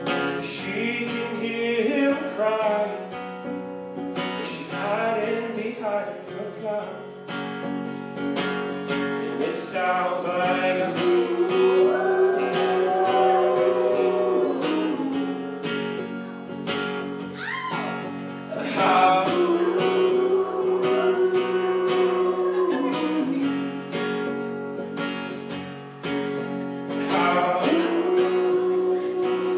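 Acoustic guitar strummed, with a man singing a slow melody over it, his voice swelling on long held notes.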